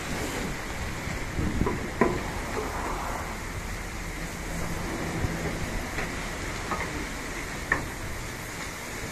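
Long-handled brush scrubbing soapy foam on a truck's rear cargo doors, with water dripping and splashing over a steady low rumble. A few sharp knocks of the brush against the doors stand out, the loudest about two seconds in and near the end.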